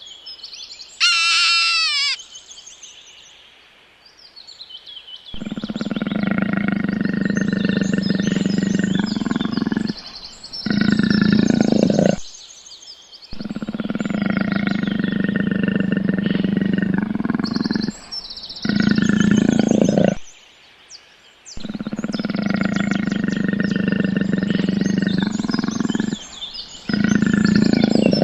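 A long, low animal call lasting about five seconds, then a shorter, louder one; the same pair is heard three times over, with small birds chirping high above it. A brief high falling call comes about a second in.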